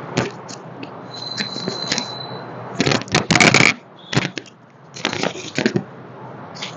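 Joints cracking during a chiropractic manual adjustment: quick runs of sharp pops, the loudest about three seconds in and a second run about five seconds in.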